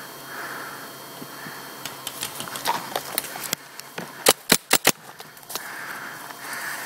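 Paintball marker firing four quick, sharp shots in a burst, about four seconds in. Before and after come scattered small clicks and crunches of movement through leaf litter, and puffs of heavy breathing on the microphone.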